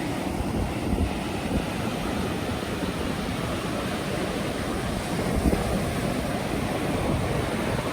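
Ocean surf washing on a beach, with wind buffeting the microphone in a steady low rumble.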